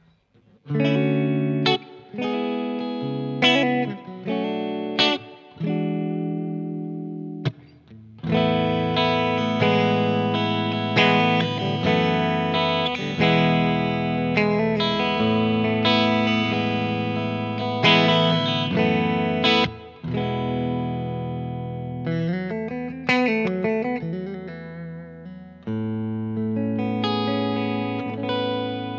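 Umeda UST QM24 electric guitar played clean on the neck and bridge pickups with both humbuckers coil-split to single-coil. Short strummed chords come first, then after a brief pause the chords are left to ring, followed by a lighter picked passage and a last ringing chord.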